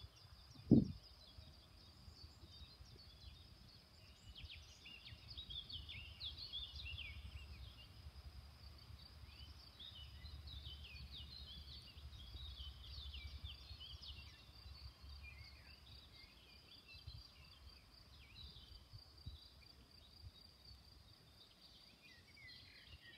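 Birds chirping and singing faintly, with many short rising and falling notes throughout, over a low rumble that swells in the middle. A single sharp thump about a second in is the loudest sound.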